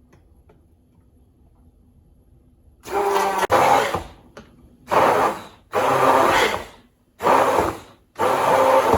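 Electric blender pulsed in five short runs of about a second each, starting about three seconds in, blending milk, banana and ice cream into a milkshake.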